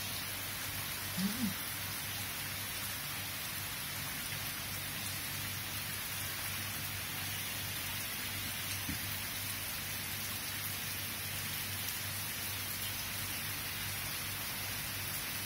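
Steady rain falling, an even hiss throughout. A brief low sound stands out about a second in.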